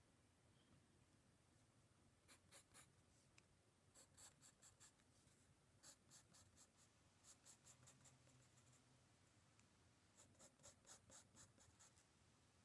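Faint scratching of a graphite sketching pencil on sketch-pad paper, drawing quick short strokes in several runs with pauses between.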